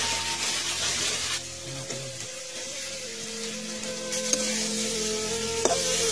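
Small fish frying in hot oil in a metal wok, sizzling, loudest in the first second or so. A spatula stirs and knocks against the pan a couple of times in the second half, over steady background music.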